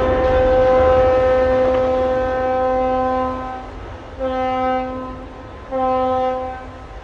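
Ship's horn sounding at a sideways ship launch: one long blast that ends about three and a half seconds in, then two short blasts, the traditional horn salute for a launch. Under the long blast, the low rumble and splash of the hull entering the water.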